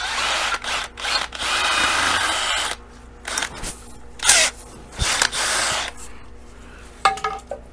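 Cordless drill boring screw holes through a pole, running in several short bursts, the longest just over a second.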